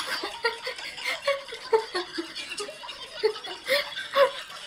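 A woman laughing in a run of short, giggling bursts, the loudest near the end.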